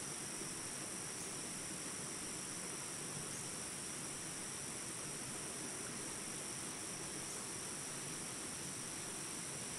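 Steady insect chorus, a continuous high-pitched drone over an even background hiss, unchanging throughout.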